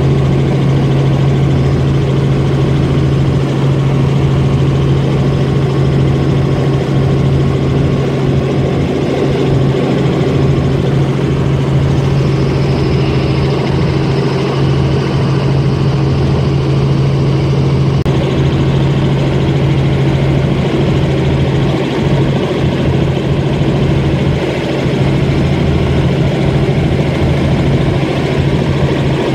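Helicopter's engine and rotor running steadily in level flight, heard from inside the cabin: a loud, even drone with a strong low hum.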